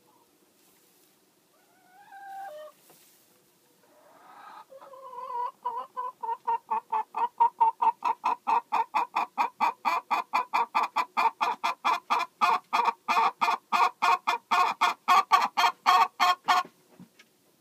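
Domestic hen clucking: one short call about two seconds in, then a long fast run of even clucks, about four a second, that grows louder and stops shortly before the end.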